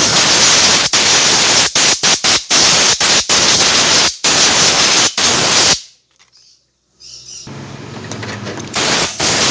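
Compressed-air blow gun blasting in long bursts broken by many quick releases of the trigger. It stops for about a second past the middle, then comes back softer and builds up again.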